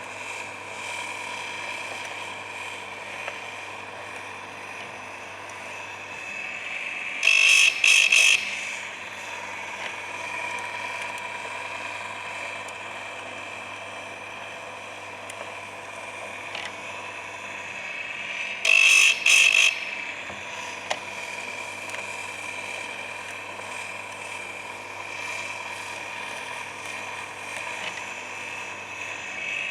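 Electric chainsaw-chain sharpener's grinding wheel spinning with a steady whine. Twice, about 7 s and about 19 s in, the wheel is lowered onto a chain tooth, giving a loud grinding burst in two quick touches each time as a tooth is sharpened.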